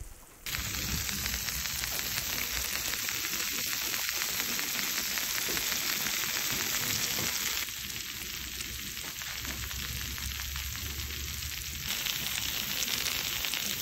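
Freshly baked lasagna roll-ups sizzling in a glass baking dish straight from the oven: melted cheese and tomato sauce crackling with a dense hiss of fine pops.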